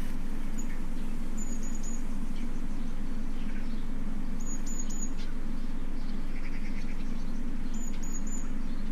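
A bird chirping: a short, high three-note call repeated three times, about every three seconds, over a steady low hum.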